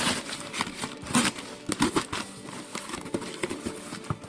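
Newspaper packing paper and a parcel being handled and unwrapped: irregular crinkling rustles and short crackles.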